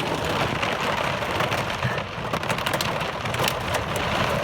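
Heavy rain pouring onto a car, heard from inside the car, as a dense steady hiss peppered with many sharp ticks of drops striking the body and glass.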